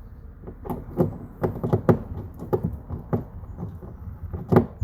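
Irregular clicks and knocks of the footbrace rail and its mounting hardware being handled and fitted against the canoe hull, with one louder knock near the end.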